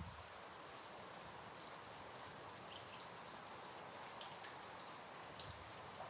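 Steady rain falling, with scattered single drops tapping now and then.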